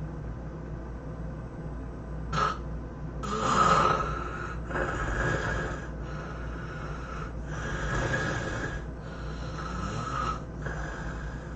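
A person snoring heavily in their sleep: a short snort about two seconds in, then a run of loud, rasping snoring breaths, each about a second and a half long, the loudest near four seconds in. A steady low hum runs underneath.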